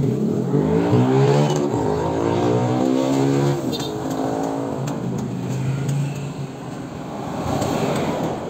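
Passing road traffic, mainly small motorcycle and tricycle engines going by. One loud engine pass rises and falls in pitch over the first few seconds, then quieter traffic follows, swelling again near the end.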